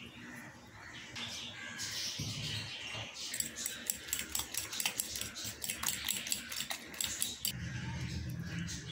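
Metal fork whisking beaten egg with chopped cabbage in a bowl: quick clinking taps against the bowl, about five a second, from about three seconds in until shortly before the end.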